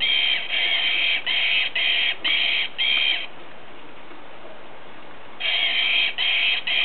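Squeaker inside a plush toy monkey squeaking over and over as a whippet bites down on it, about two squeaks a second. The squeaking stops for about two seconds in the middle, then starts again.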